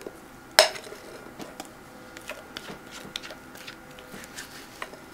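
Glass mixing bowls knocking together once with a sharp clink and brief ringing about half a second in. Then a silicone spatula scrapes thick whipped cream out of the tilted glass bowl, with light taps and soft scraping sounds.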